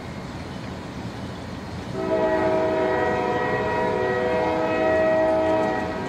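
A horn sounding one long, steady chord of several tones, starting about two seconds in and stopping near the end.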